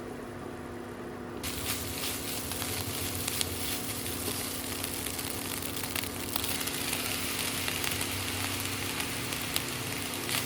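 Food sizzling and crackling in a hot pan, starting suddenly about a second and a half in, as if it had just been put into the hot fat. A steady hum runs underneath.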